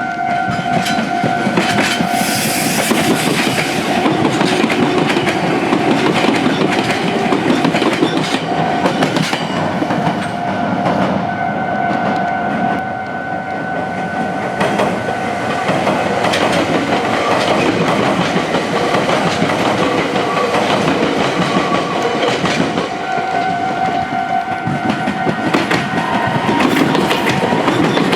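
Meitetsu train passing over the Biwajima junction, its wheels clattering over rail joints in a steady run of clicks. A steady warning tone from the level crossing alarm is heard at the start, again around the middle and again near the end.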